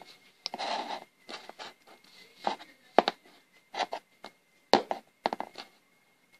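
Plastic toy pony figures moved by hand across a hard surface: irregular clicks, taps and short rustles as the hooves knock down and the toys are handled.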